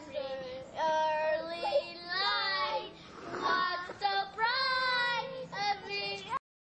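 Young children singing high-pitched phrases of a short song, cutting off abruptly near the end.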